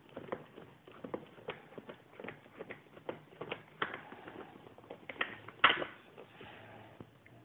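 Irregular light clicks and taps of hard plastic being handled: an action camera in its clear waterproof housing is worked loose from the mount on its cardboard box, with one sharper click a little over halfway through.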